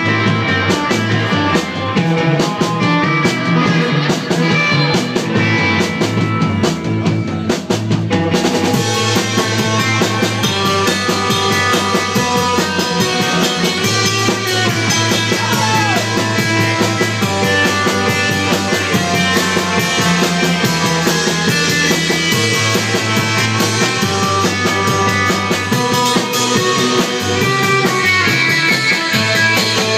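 A live rock band playing: electric guitar over drums, with the cymbals coming in steadily about eight seconds in.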